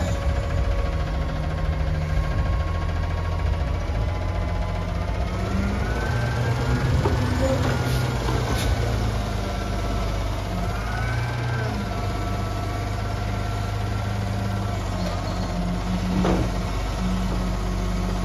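Front-loader garbage truck's diesel engine revving to drive its hydraulics as the front arms lift the fork-mounted can up over the cab, with a whine that rises and falls as the arms move. A couple of sharp clunks from the lift.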